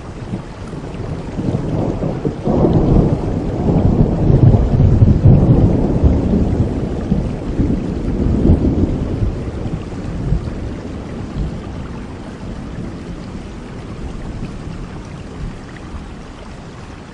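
A long roll of thunder over steady rain. The rumble builds about two seconds in, is loudest around five seconds, and fades out by about ten seconds, leaving the rain alone.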